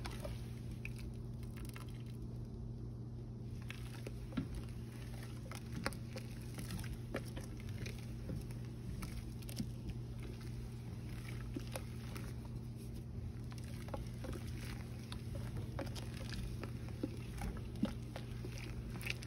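Mash paddle stirring crushed grain and hot water in a stainless steel mash tun during mash-in, breaking up dough balls: soft sloshing and patter with scattered light clicks, over a steady low hum.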